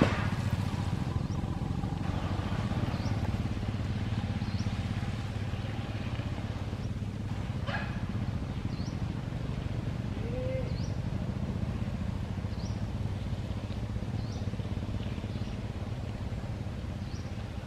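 Small motorbike engine running steadily at a low pitch as it rides by, with a bird's short rising chirp repeating every second or two. A brief louder sound comes at the very start and again about eight seconds in.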